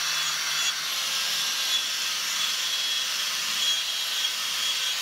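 Angle grinder with a wire brush running against the rusty cast iron body of a wood-burning stove, scrubbing off rust: a steady scratching hiss with a thin high whine.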